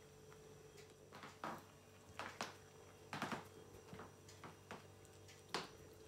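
A Norwegian forest cat eating meat from a plate, with a handful of faint, short chewing and smacking sounds about a second apart.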